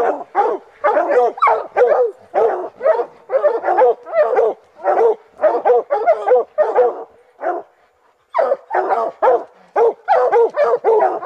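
Hounds barking steadily at the foot of a tree, short pitched barks about two a second with a brief break about eight seconds in: the dogs are baying a bear they have treed.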